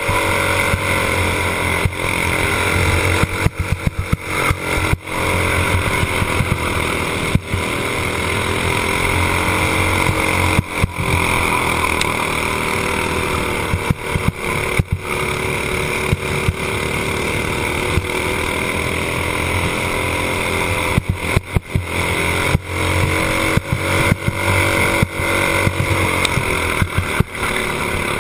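Racing kart's single-cylinder engine at race speed, its pitch rising and falling as it works through the corners, with the throttle lifted briefly several times. Wind rushes over the onboard microphone throughout.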